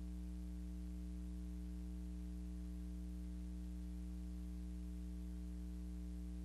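Steady low electrical hum, a mains-type buzz, with a faint hiss over it and nothing else happening.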